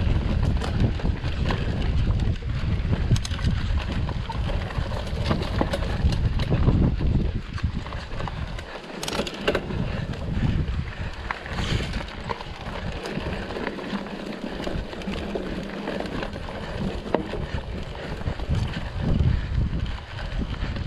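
Wind buffeting the microphone while riding a mountain bike over a rough trail, a steady rumble scattered with small clicks and rattles. The rumble eases for a few seconds near the middle.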